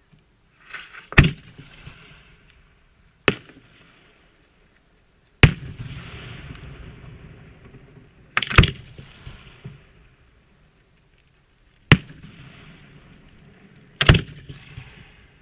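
Aerial firework shells bursting overhead: about six sharp bangs, two to three seconds apart and some in quick pairs, each trailing off over a second or two.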